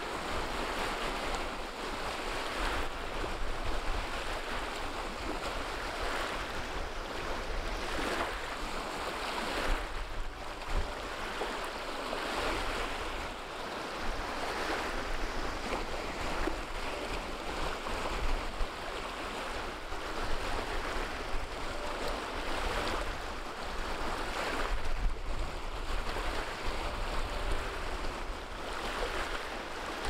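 Small wind-driven waves breaking and washing over a pebble shore in irregular surges, with wind buffeting the microphone.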